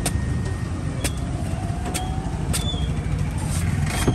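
A cleaver chopping into the husk of a young green coconut: about five sharp strikes spread a second or less apart, over the steady rumble of street traffic.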